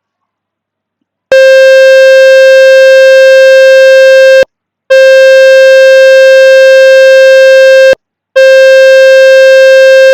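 Water-ejection tone from the Fix My Speaker web page, played to shake water and dust out of a phone speaker: a loud, steady, buzzy tone in three bursts of about three seconds each, with short breaks between, starting a little over a second in.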